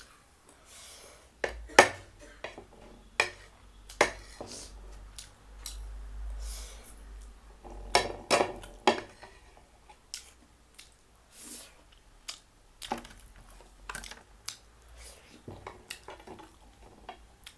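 Eating utensils clinking and tapping against dishes, with sharp clinks at irregular intervals and a quick cluster of them about eight seconds in.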